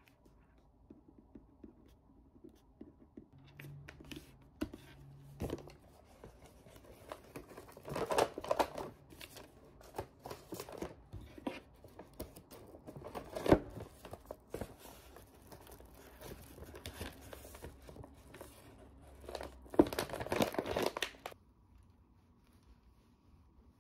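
Brown kraft paper bag crinkling and rustling as it is folded and handled to wrap a gift, in irregular bursts that are loudest about eight seconds in and again near the end, with one sharp tap about halfway through.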